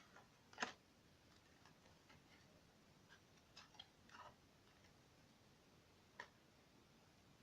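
Near silence with a few faint, sharp clicks and taps: the loudest about half a second in, a small cluster around four seconds, and one more near six seconds.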